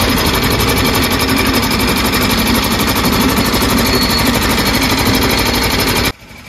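Belt-driven sugarcane crusher running, a loud, fast and even mechanical rattle as its geared rollers crush cane stalks being fed in by hand. It cuts off suddenly about six seconds in.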